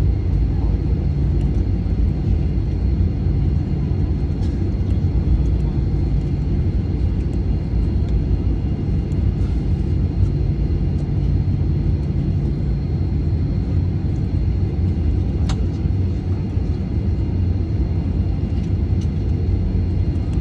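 Steady low cabin rumble inside a Boeing 737-900 taxiing after landing: its CFM56-7B engines at low power and the wheels rolling over the taxiway, with a faint steady high whine.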